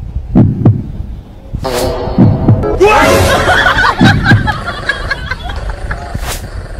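Small dog snoring into a karaoke microphone: low snores in pairs about every two seconds, amplified by the mic, over music and laughter.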